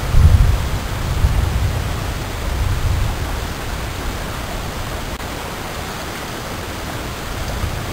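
Deep rumbling of thunder from a lightning strike, rolling in three swells over the first three seconds before fading, over a steady hiss.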